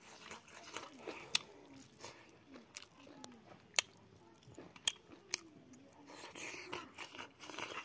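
Close-up mouth sounds of a person eating rice and boiled pork by hand: wet chewing with several sharp smacks of the lips a second or so apart.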